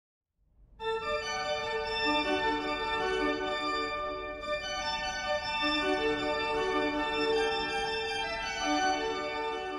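Organ music: slow, sustained chords, coming in after a short silence about a second in.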